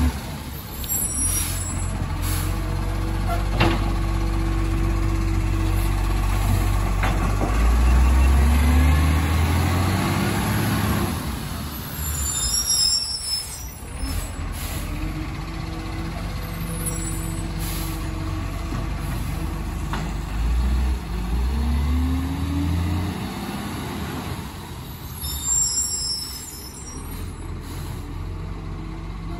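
Garbage truck's diesel engine running, revving up twice with a rising pitch, with short air-brake hisses about three times as it stops and moves off between bins. It grows fainter toward the end as it pulls away down the street.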